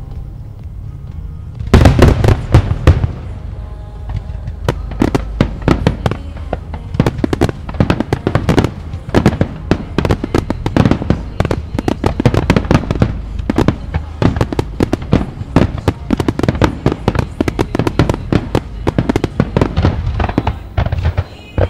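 Aerial fireworks shells bursting in a dense finale barrage. After a low rumble, a rapid, unbroken run of bangs and crackles breaks out about two seconds in and keeps going, stopping shortly before the end.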